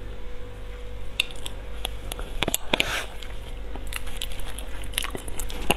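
Soft ripe durian flesh being bitten and chewed, with scattered small mouth clicks.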